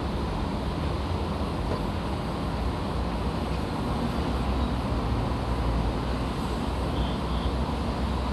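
Construction site ambience: a steady low mechanical rumble with no distinct impacts.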